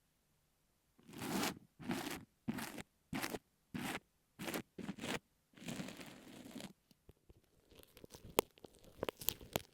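Kinetic sand scraped and pressed with an ear pick on an earphone microphone, in about eight separate grainy strokes. Near the end these give way to quick sharp clicks and sticky crackles from a glue stick.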